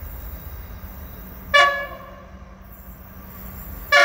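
Diesel locomotive horn of The Overland passenger train as it approaches. There is a short blast about one and a half seconds in, then a longer, louder blast starting near the end, over a low steady rumble.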